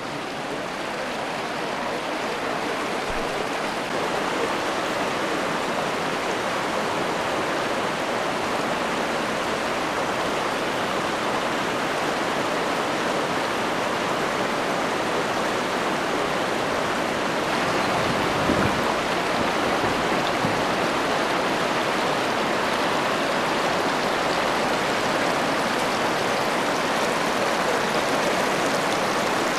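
Swollen Jizera river in flood, its fast water making a steady, loud rush that builds a little over the first few seconds and then holds.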